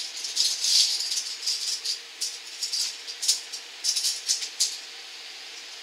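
Irregular dry rattling clicks in quick clusters, like a small shaker. They stop about three-quarters of the way through, leaving a steady faint hiss.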